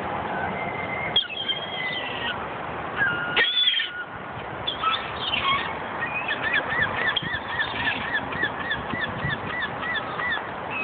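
Gulls calling: scattered high squealing calls, then from about six seconds in a fast series of short repeated calls, about three a second, lasting several seconds, over a steady background hiss.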